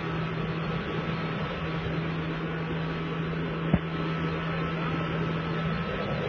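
Engine of a narrow wooden motorboat running steadily at speed, a constant hum over a steady rush of noise. A single sharp click about three and a half seconds in.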